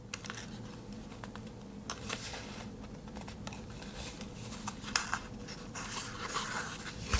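Quiet rustling, scraping and a few light taps as a Swiss Army knife's cardboard box and paper wrapping are opened and handled, over a faint steady hum.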